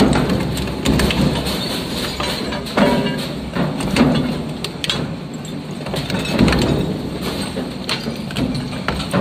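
Twin-shaft shredder's hooked cutter discs tearing apart an alloy car wheel: continuous grinding and crunching of metal, broken by repeated sharp cracks. The loudest cracks come about three, four and six and a half seconds in.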